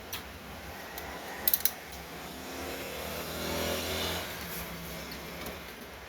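A screwdriver driving a screw into the side of a small desktop PC's metal case. Two sharp clicks come about a second and a half in, then a steady whir for about two seconds.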